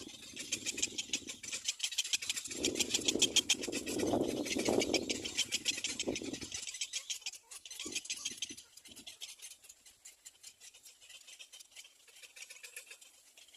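Little black cormorants calling at the nest: a rapid, high-pitched ticking chatter that fades after about seven seconds. Over the first half it sits on a louder low rumbling noise that swells and drops.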